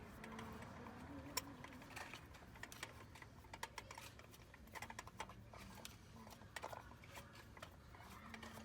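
Faint, irregular clicks and light taps of hand tools and engine parts being handled.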